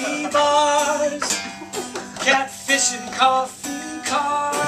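A man singing a pop-style song while strumming an acoustic guitar.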